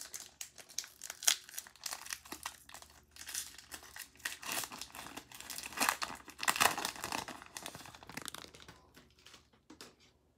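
Foil Pokémon booster pack (Rebel Clash) being torn open and handled, with irregular crinkling and crackling of the wrapper that thins out near the end.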